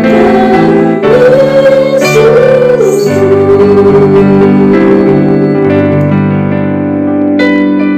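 A worship song with a singing voice over electric keyboard accompaniment; the voice ends about three seconds in and the keyboard holds on with sustained chords.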